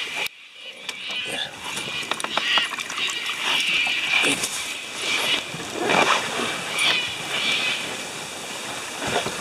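Scuffs, knocks and light splashing as a person climbs from a sandy riverbank into a canoe and settles into the seat.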